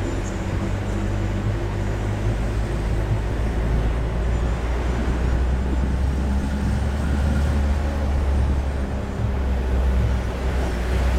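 A jeep's engine running steadily under way, with tyre and road noise, heard from inside the cabin as a low, even hum.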